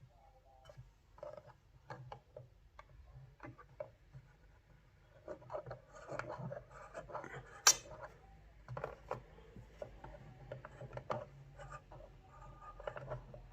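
Braun Megamatic travel alarm clock being handled: faint, irregular scraping, rubbing and light plastic clicks, with one sharp click about seven and a half seconds in.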